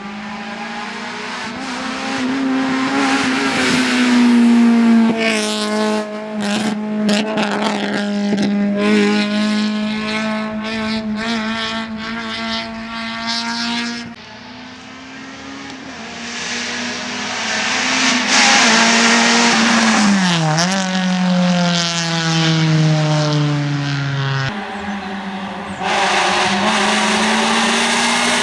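Honda Civic rally car's four-cylinder engine held at high revs, its pitch staying fairly level, with a short drop and recovery in revs about twenty seconds in. The overall loudness falls suddenly about fourteen seconds in and jumps back up near the end.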